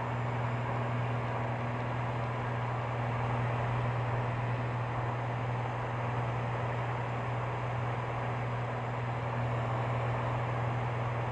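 Cabin sound of a Cirrus SR22's six-cylinder Continental IO-550 engine at cruise power with the mixture leaned: a steady low drone with a noisy rush over it. At this lean setting the engine runs rough, a fault traced to a missing gasket on the #2 cylinder's fuel injector that made that cylinder run lean.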